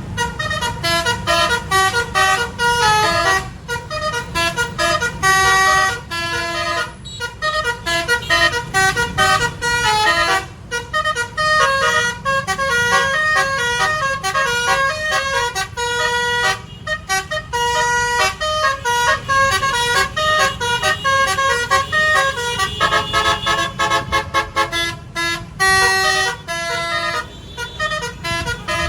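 Basuri multi-tone 'telolet' bus horn playing a fast melody of short stepped notes, with brief pauses between phrases, over a low rumble.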